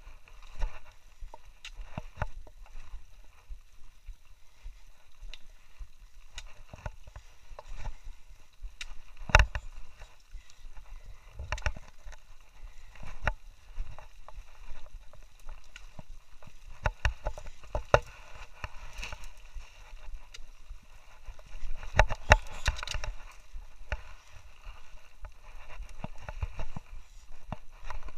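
Footsteps on a rocky trail: irregular knocks and scuffs, with one sharp knock about a third of the way in and a busier run of them about three-quarters through.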